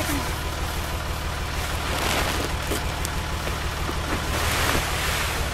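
Olive-harvest nets and a canvas sheet rustling and dragging as olives are tipped onto the sheet, with swells of rustling about two seconds in and near the end, over the steady low hum of an engine running.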